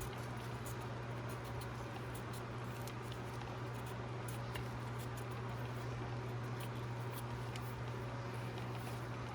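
Faint, irregular ticks and scrapes of a knife peeling and slicing raw beets, over a steady low hum.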